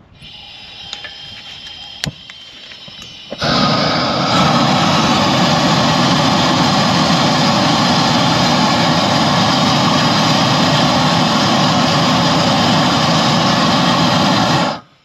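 Hose-fed gas torch: a faint gas hiss with a sharp click about two seconds in, then about three and a half seconds in the flame opens up to a loud, steady rush that cuts off suddenly near the end. The flame is heating a seized, rusted tie rod joint to break it loose.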